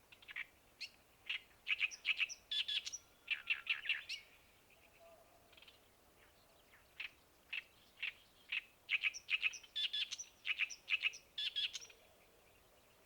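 A songbird singing two long phrases of rapid, short, sharp notes, each lasting three to five seconds, with a pause of about three seconds between them, over faint steady outdoor background noise.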